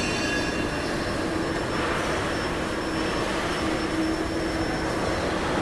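Steady machinery noise of a metal-working factory floor: an even drone with a steady low hum running through it and no single knock or clank standing out.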